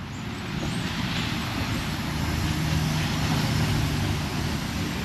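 A motor vehicle engine running steadily under a constant hiss of noise, swelling slightly about halfway through.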